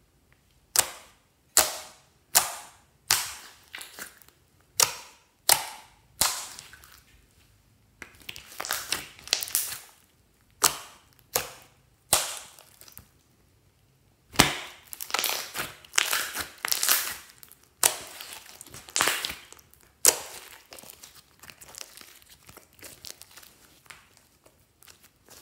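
Glossy clear slime being pressed and stretched by hand, giving sharp wet pops, about one every three-quarters of a second at first, then runs of crackling squelches as it is folded.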